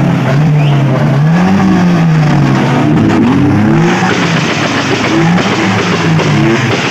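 A car engine revving, its pitch rising and falling again and again, with music playing at the same time.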